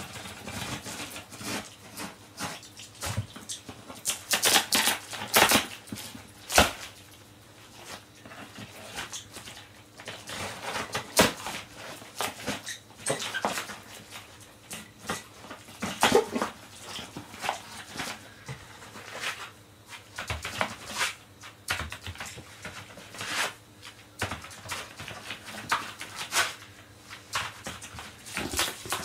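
Utility knife slicing through clear packing tape on a large cardboard box while the cardboard flaps are pulled and bent open. The sound is a continuous run of irregular scrapes, crackles and clicks.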